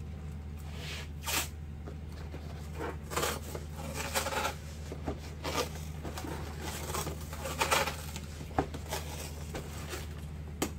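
Packing tape pulled off the roll and pressed onto a cardboard box: a series of short rasping strips at irregular intervals, over a steady low hum.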